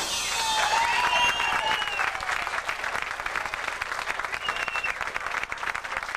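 Small crowd applauding right after a tune ends: dense hand-clapping with a few shouts and whoops in the first two seconds and a short whistle at about four and a half seconds, the clapping slowly thinning and growing quieter.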